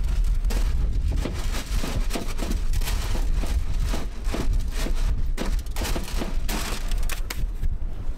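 Wind buffeting the microphone: a heavy low rumble with irregular crackling.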